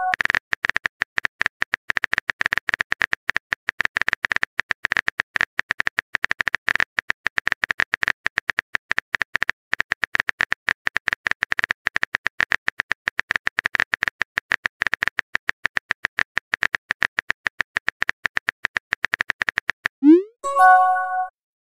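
Rapid, continuous phone-keyboard typing clicks: a text-message typing sound effect. Near the end a short rising pop and a brief chime of a few notes mark a message being sent.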